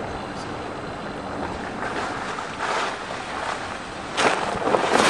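Car tyres rolling over packed snow and slush: a steady rushing, swishing noise that turns louder and more crackly about four seconds in.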